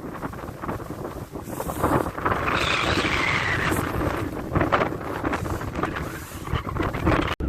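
Strong wind buffeting the microphone in uneven gusts, with a rushing swell about two seconds in.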